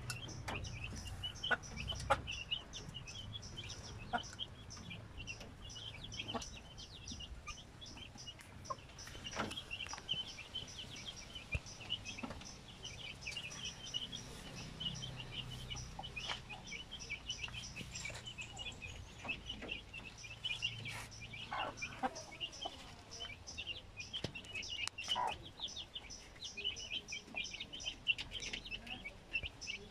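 Continuous rapid high chirping of birds, with scattered sharp clicks and knocks.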